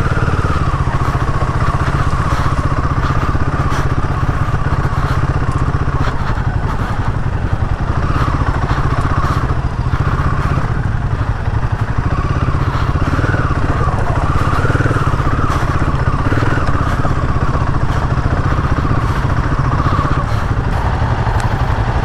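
Royal Enfield Himalayan 450's single-cylinder engine running steadily, with a dense low rumble and a mid-pitched tone that wavers slightly.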